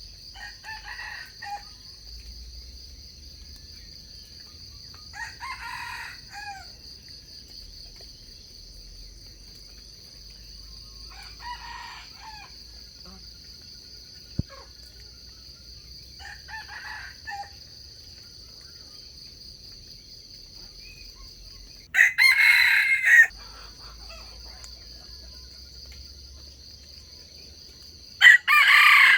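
Wild junglefowl rooster crowing six times, each crow short and about five or six seconds apart. The first four are fainter and the last two, near the end, are much louder and closer. A steady high-pitched insect drone runs underneath, and a single sharp click comes about halfway through.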